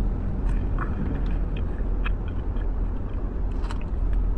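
Steady low rumble of a car, with a few faint ticks and taps.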